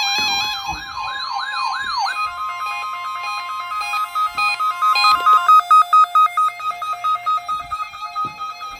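Electronic synthesizer music with a siren-like wailing sweep, about four wails a second, that stops about two seconds in. Held high tones follow and start pulsing rapidly from about halfway, with a few short knocks.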